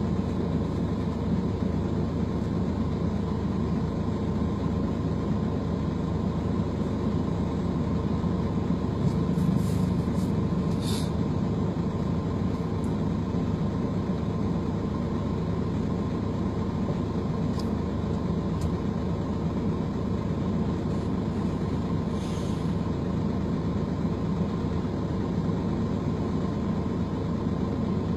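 Steady, even engine-like rumble with a constant hum and no change in speed, with a few faint clicks about ten seconds in and again a little past twenty seconds.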